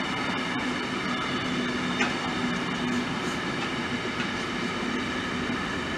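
Freight train of intermodal pocket wagons carrying truck trailers and tank containers rolling slowly past: a steady rumble of wheels on rail with faint steady tones running through it and a light click about two seconds in.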